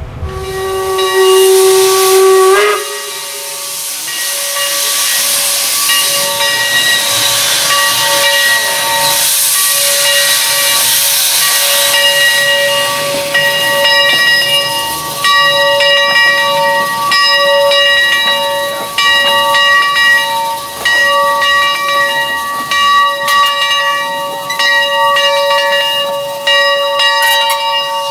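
Steam locomotive Leviathan No. 63, a 4-4-0: a steam whistle blast of about two and a half seconds that slides up in pitch as it cuts off, then a long loud hiss of escaping steam carrying a steady whistling tone.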